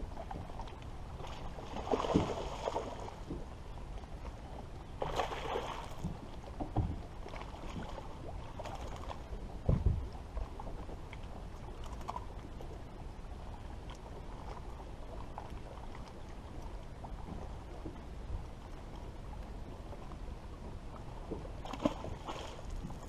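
Water lapping and wind around a bass boat, broken by splashes of a hooked bass thrashing at the surface about 2 and 5 seconds in, a thump about 10 seconds in as the fish is brought aboard, and another splash near the end beside the bow.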